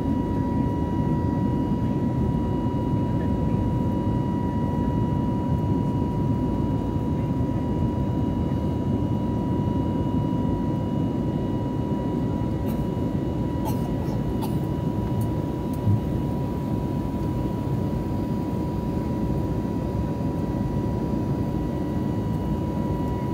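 Cabin noise inside an Airbus A320neo climbing out after takeoff: the CFM LEAP-1A engines' steady roar with a steady high whine over it. A few faint clicks and one brief thump come about two-thirds of the way through.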